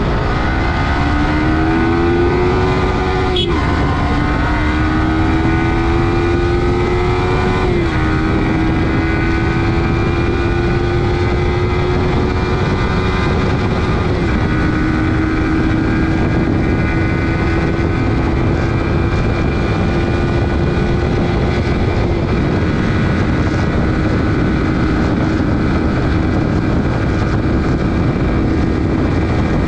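Yamaha R15 V4's 155 cc single-cylinder engine at full throttle, accelerating up through the gears with quick quickshifter upshifts. The note climbs, drops sharply at each of four shifts, and climbs more slowly in each higher gear, then holds nearly steady near top speed. Steady wind rush underneath.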